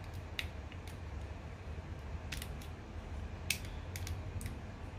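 Die-cast and plastic joints of a Soul of Chogokin Voltes V figure clicking as they are handled and folded into place: several short sharp clicks, the strongest about three and a half seconds in.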